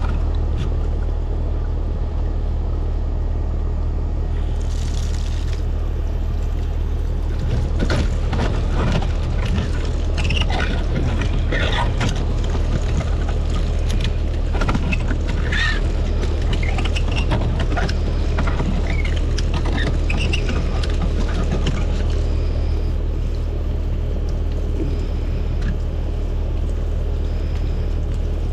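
A steady low mechanical hum, with scattered metal clicks and scrapes from multitool pliers picking corroded buildup out of a threaded pipe fitting, mostly through the middle stretch.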